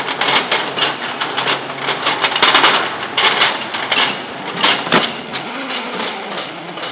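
Irregular metallic clicking and clattering of 20mm cannon cartridges being handled and fed through an ammunition loading mechanism, easing off somewhat in the last couple of seconds.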